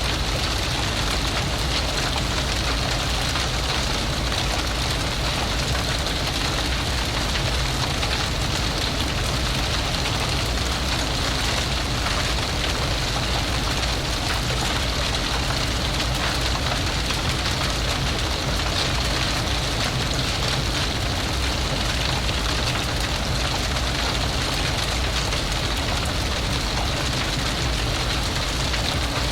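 Fire blazing: a steady dense hiss of burning flames with fine, rapid crackling throughout.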